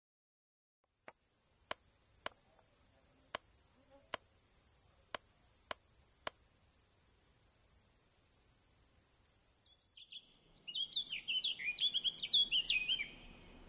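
A steady high-pitched hiss with eight sharp ticks over the first six seconds, cutting off suddenly about ten seconds in. It is followed by small songbirds chirping and twittering in quick, falling notes, loudest near the end.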